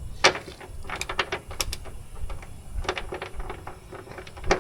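Hand ratchet wrench clicking in short, uneven bursts as a stuck bolt is worked that won't come loose, with one sharp click about a quarter second in.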